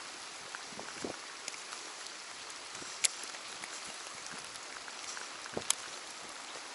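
Steady rain falling on water, a soft even hiss, with occasional sharp ticks; two louder ticks come about three seconds in and again near six seconds in.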